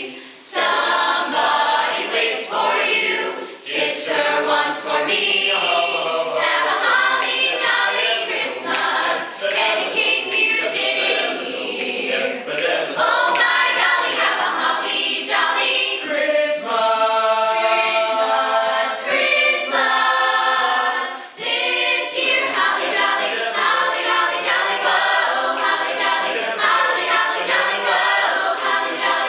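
Youth choir, mostly girls' voices, singing a Christmas song together, with short breaks between phrases.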